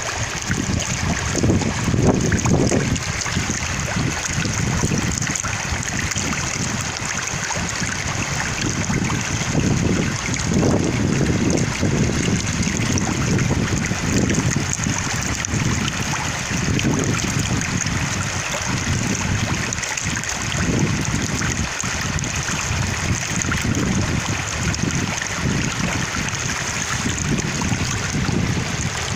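A stream of water flowing steadily, with wind gusting against the microphone in uneven low rumbles.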